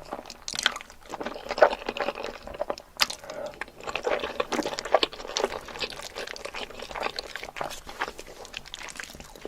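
Close-miked eating of Korean-style instant noodles: irregular wet slurps and chewing noises.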